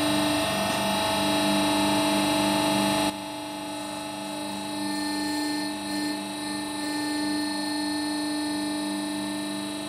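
Hydraulic press pump running with a steady hum and whine as the ram lowers onto an M8 bolt; the level drops suddenly about three seconds in and the hum carries on more quietly.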